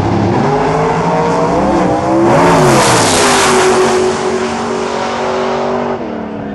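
Top Sportsman drag cars' engines at full throttle, launching and running down the drag strip. The sound is loudest from about two seconds in, and the pitch and level drop about six seconds in as the drivers come off the throttle.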